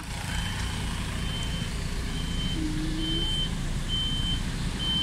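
A truck's reversing alarm beeping steadily, about one high beep a second, over a low rumble.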